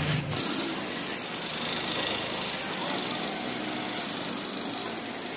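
Busy street noise: a steady wash of traffic and motor sound with voices in the background.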